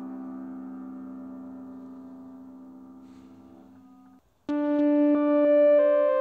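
Electric keyboard playing: a held chord fades out slowly, and after a brief gap about four seconds in, a new, louder phrase of sustained chords begins, shifting to a new chord every half second to a second.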